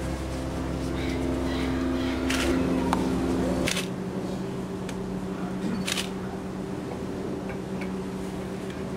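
A steady low motor hum with a few sharp clicks; the hum changes abruptly a little over a third of the way in, its deepest part dropping out.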